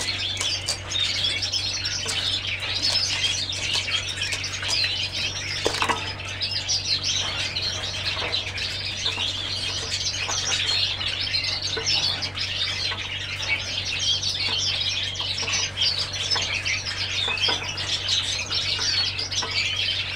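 Gloster canaries chirping and twittering without a break, now and then with a short flutter of wings, over a steady low hum.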